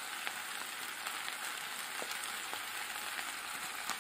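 Oil sizzling steadily in a cast-iron skillet holding chicken drumsticks, onion and dry penne, with a few faint pops.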